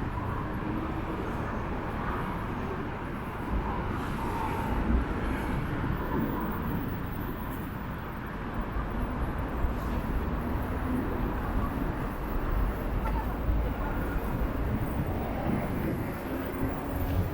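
City street ambience: a steady rumble of road traffic, with no single sound standing out.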